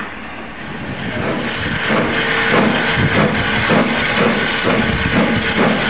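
Steam locomotive pulling away with its train, the exhaust chuffing at a steady beat of about three a second over a hiss of steam, building up over the first two seconds.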